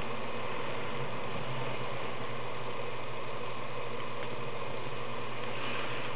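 Steady hiss with a constant low hum underneath and no distinct sounds standing out.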